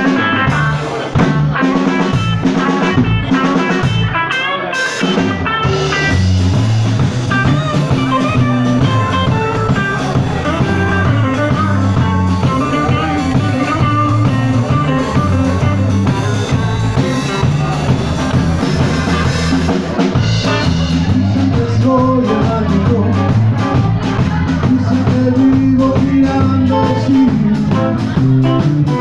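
Live rock band playing: electric guitars over a drum kit, starting sparse with separate drum hits and guitar notes, and the full band filling in about five or six seconds in.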